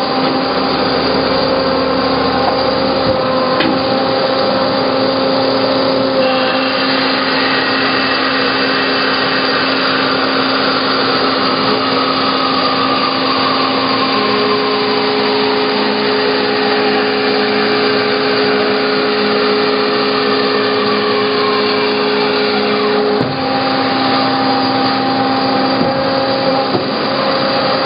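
Hyd-Mech H-16 automatic horizontal bandsaw running under its programmed cycle: a steady machine hum, with a higher whine that slowly falls in pitch through the middle, as the blade cuts the first of four 3-inch pieces from the bar.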